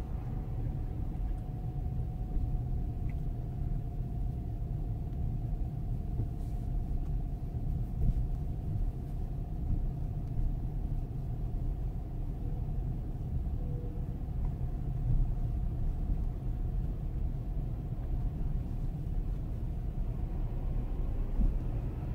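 Steady low rumble of a car's road and engine noise heard from inside the cabin while driving slowly through town, with a faint steady tone over it that fades out near the end.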